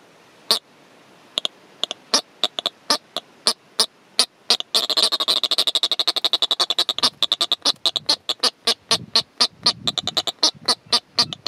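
A pair of Atlantic yellow-nosed albatrosses calling during courtship at the nest: a series of sharp clicks, sparse at first, that speeds into a fast rattle about five seconds in and then goes on at a few clicks a second.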